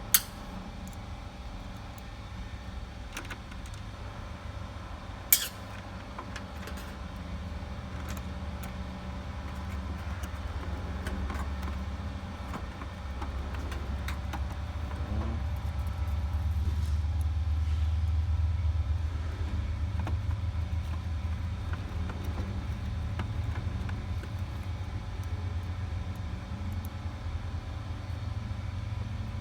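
Hands and a screwdriver working screws into a small ice maker's plastic housing: faint ticks and scrapes, with two sharp clicks, one right at the start and one about five seconds in, over a steady low rumble.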